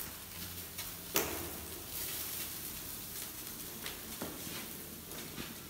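Sheep's liver and heart sizzling over glowing charcoal in a hinged wire grill basket. A sharp click comes about a second in and a few lighter knocks come later as the basket is handled.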